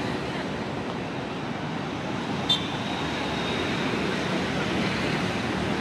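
Steady city road traffic noise from passing vehicles, with one short sharp click about halfway through, followed by a brief high ringing tone.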